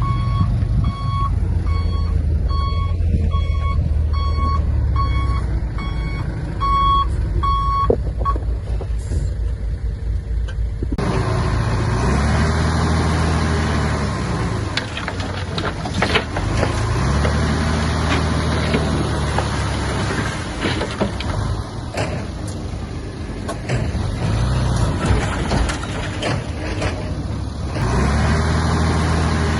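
A reversing alarm beeps about twice a second over a diesel engine for the first eight seconds. About eleven seconds in, the sound changes abruptly to a heavy diesel engine of earth-moving machinery, rising and falling in pitch several times.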